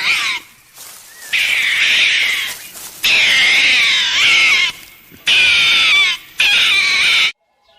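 An animal calling loudly: a series of high-pitched, harsh, wavering calls about a second long each, with short pauses between them.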